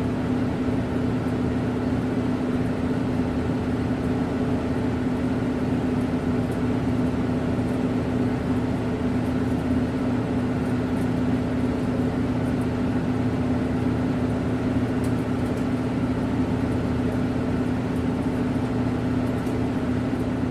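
Factory conveyor machine running steadily: a continuous mechanical drone with a strong hum and a faint rattle of small clicks near the end.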